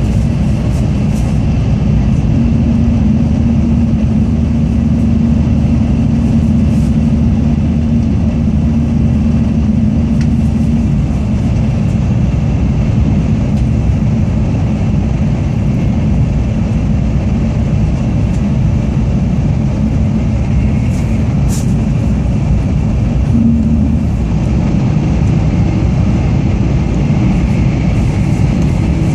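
Tokaido Shinkansen Kodama train running at speed, heard from inside the passenger cabin: a steady low rumble of wheels and rushing air. A low steady hum rides over it for several seconds near the start.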